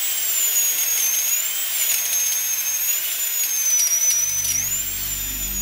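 High-pitched drill whine, running on and wavering slightly in pitch. About four seconds in, low sustained music notes come in underneath.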